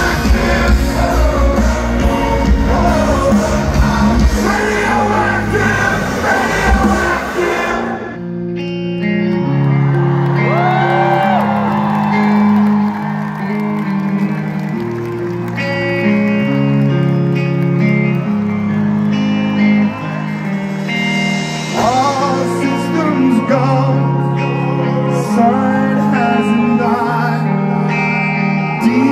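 Live rock band with a male singer, heard through a phone microphone in the crowd: loud full-band music with heavy bass cuts off abruptly about 8 seconds in, giving way to slow, sustained low chords with the voice singing long, wavering notes over them.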